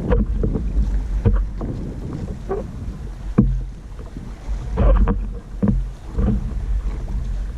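Wind buffeting the microphone aboard a moving boat, a steady low rumble, with irregular short knocks and splashes.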